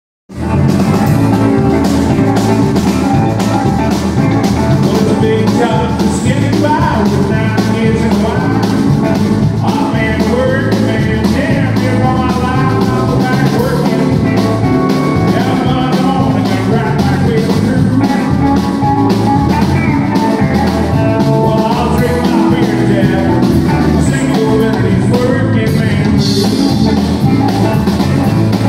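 Live country band playing: a man singing over electric guitar, keyboard and drums, with a steady beat.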